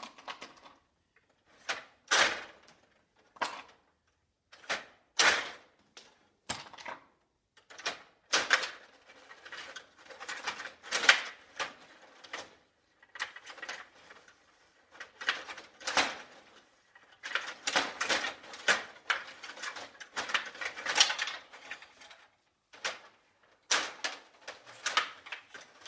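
Stiga Play Off table hockey game in play: irregular sharp clicks and short bursts of clattering as the metal control rods are pushed, pulled and spun and the plastic players strike the puck.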